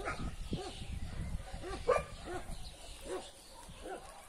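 Dogs barking in a steady run of short barks, about two a second, with one louder, higher bark about two seconds in.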